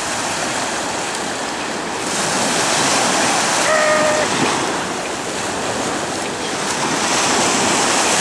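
Sea waves breaking and washing up a stony beach, the surf swelling twice.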